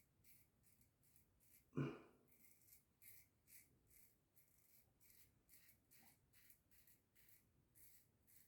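Faint short rasps of a RazoRock Eco safety razor scraping stubble through shaving lather, about two to three strokes a second. There is one louder, lower short sound about two seconds in.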